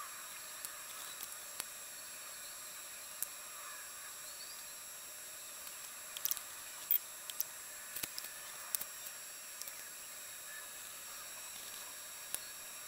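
Computer mouse clicking a dozen or so times at irregular intervals, most of them bunched together about halfway through, over a steady faint hiss with a thin high-pitched electronic whine.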